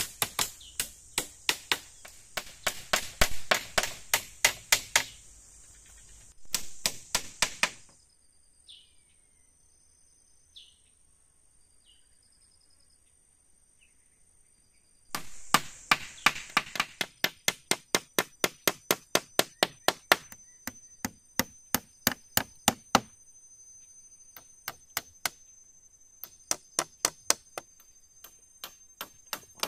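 Rapid chopping strikes on wood, about two to three a second, in a long run, a pause of several seconds, then another long run that thins out into scattered strikes near the end. A steady high insect trill sounds behind.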